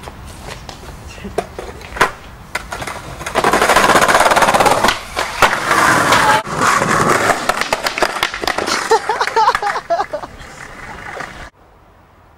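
Skateboard wheels rolling loudly over pavement, with sharp clacks of the board, running from about three seconds in until the sound cuts off abruptly near the end.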